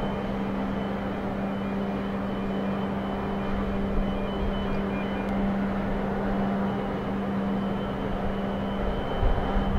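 Steady drone of heavy port machinery with a constant hum, a deeper rumble building near the end.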